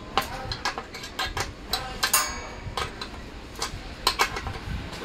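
Irregular metallic clinks and taps of hand tools and fittings against a steel sewing-machine stand as it is assembled, with a brief ringing clink about two seconds in.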